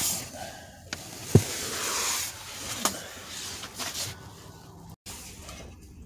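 Rustling and scraping from hands and tools working at a car's pedal bracket under the dashboard, with a couple of clicks and one sharp knock about a second and a half in.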